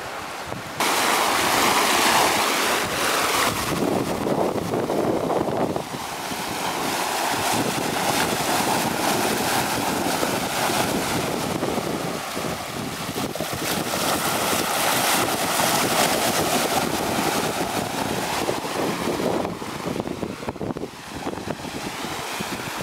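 Sea water rushing and breaking along the hull of a sailing yacht under way, a steady hiss of spray with wind buffeting the microphone. It starts suddenly about a second in.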